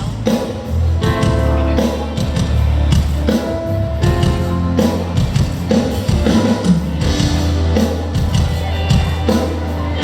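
Loud band music through a festival PA during a sound check, with heavy bass notes, a regular drum beat and some singing.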